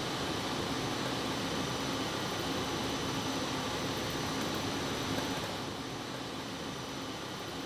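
Plastic film machine running steadily, a constant hum and hiss of rollers carrying the film with a faint low drone and a high steady tone over it. It gets a little quieter about five and a half seconds in.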